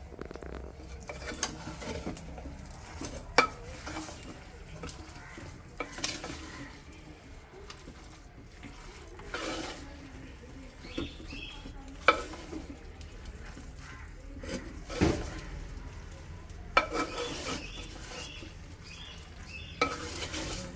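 Wooden spatula stirring chunks of beef in masala inside a clay pot, scraping round the pot with a faint sizzle underneath and several sharp knocks of the spatula against the pot's rim.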